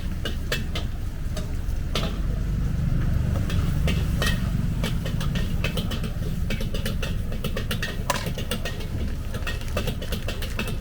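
Stir-frying in a wok over a gas burner: a steady low roar under sharp metal clinks and scrapes of a spatula against the wok, coming faster in the second half.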